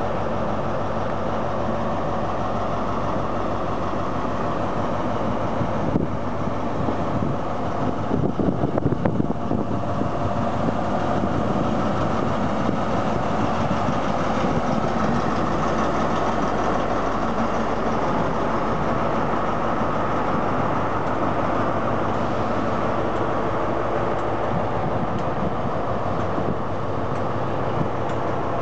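Class 43 HST power car's MTU 16V4000 diesel engine idling steadily while the train stands, a little louder and more uneven about six to ten seconds in.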